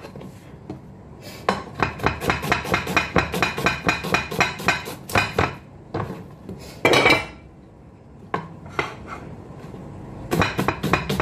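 Kitchen knife chopping a red onion on a cutting board: a quick run of sharp strikes, about four to five a second, for several seconds. A short louder rasp comes about seven seconds in, then a few scattered chops, then another quick run near the end.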